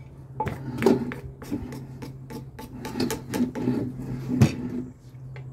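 Wooden pestle pounding papaya salad in a clay mortar: irregular wooden knocks, roughly two to three a second, the hardest strike about four and a half seconds in, over a steady low hum.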